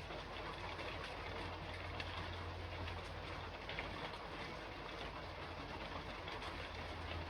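Steady rain falling on a roof, a dense even patter with a steady low hum underneath.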